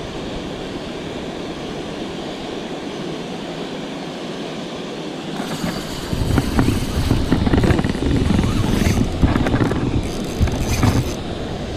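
Steady rush of water pouring over a dam spillway. About six seconds in, a louder rough rumble with scattered knocks comes in on top: wind and handling noise on the camera microphone as the angler's arm moves close to it.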